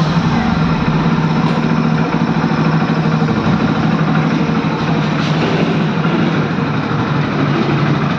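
Hero Splendor motorcycle's single-cylinder four-stroke engine idling steadily, with a new air filter fitted.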